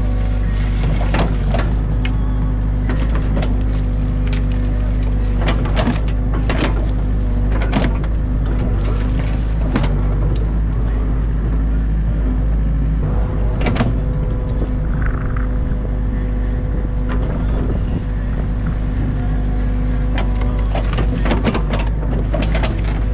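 Excavator's diesel engine running steadily under load, heard from the cab, with hydraulics working the boom and bucket. Scattered sharp knocks and cracks come through as the bucket digs and dumps mud and sticks.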